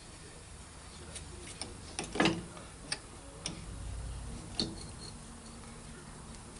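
A handful of small, sharp metal clicks and taps spread over a few seconds, the loudest about two seconds in. They come from valve keepers and tools being handled while the valve springs of a cast-iron Harley-Davidson Sportster cylinder head are compressed and the keepers taken out.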